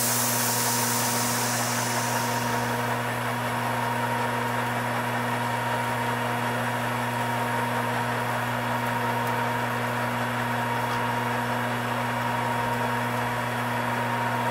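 Metal lathe running steadily at about 320 RPM with an even mechanical hum while a relieved-centre form tool takes a wide undercut cleanly, without chatter. A hiss of coolant spray sounds over it for the first two seconds or so, then fades.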